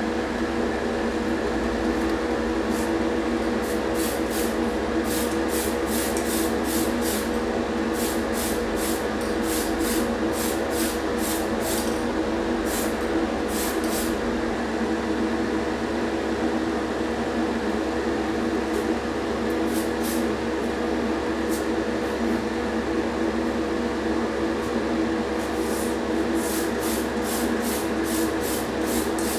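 Small electric motor tool running at a steady speed, with repeated short hissy strokes over it as the tool works against the small diecast model's metal.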